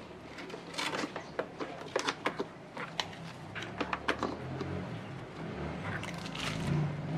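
A run of sharp clicks and taps from handling the loosened stock negative battery terminal clamp, then a low steady hum that builds through the last couple of seconds.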